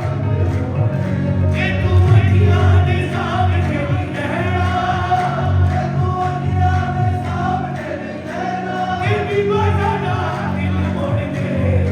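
Qawwali music, with a group of voices singing together over steady held notes.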